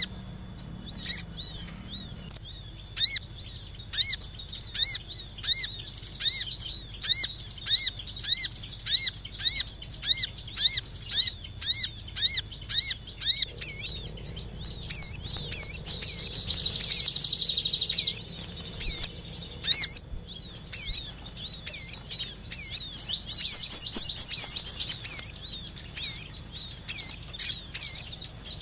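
Small songbirds chirping in a bird-lure recording: high, evenly repeated chirps go on throughout. Several birds overlap in denser bursts of twittering about halfway through and again about three-quarters of the way in.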